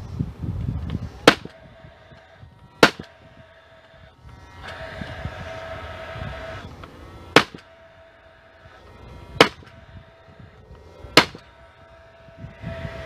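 Paslode 16-gauge angled finish nailer firing five times at uneven intervals, each shot a sharp crack as it drives a finish nail through the pine roof board into the birdhouse walls.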